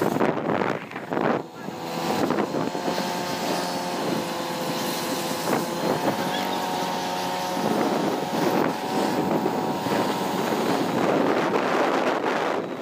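Motorcycle engine running steadily as it is ridden, with wind rushing over the microphone.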